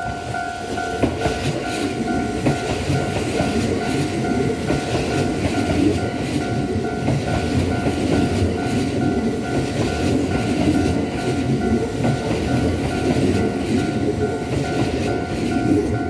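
Kintetsu 1026 series electric train passing close by: a dense rumble with the clickety-clack of wheels over the rail joints. Over it, the level crossing's warning bell rings in a steady, even pulse.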